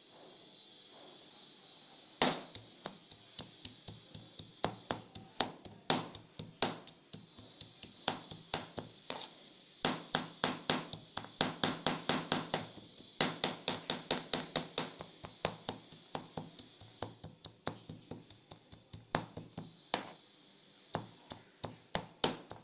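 Kitchen knife chopping raw shrimp on a plastic cutting board: runs of quick, sharp knife strikes, several a second, with short pauses. The chopping starts about two seconds in.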